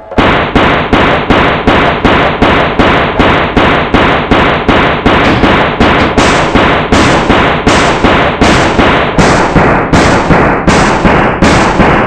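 A loud, harsh noisy burst repeated in a fast, even beat, about two and a half times a second: a short sample looped in a remix. It gets brighter about halfway through.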